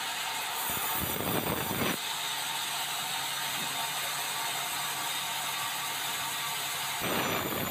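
Large sawmill band saw running steadily with a constant high hiss as it cuts through a red meranti log.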